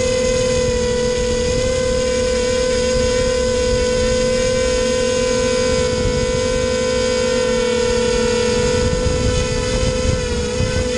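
Racing quadcopter's electric motors and propellers whining steadily at a constant pitch while it hovers, heard up close from a camera mounted on the quad.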